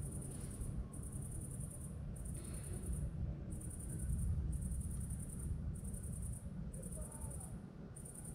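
An insect chirping in high, repeated trains about once a second, over a steady low rumble that swells about four seconds in.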